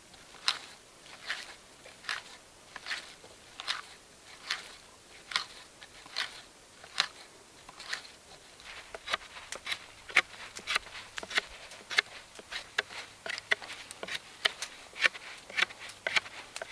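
Sharp scraping strokes of hand tools on green wood: about one stroke a second at first, then quicker, two or three a second, for the second half, where a knife is whittling a stick.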